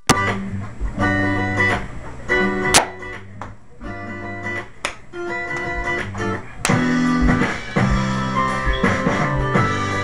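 Instrumental intro of a pop song, led by guitar chords over a bass line. The arrangement fills out about two thirds of the way in.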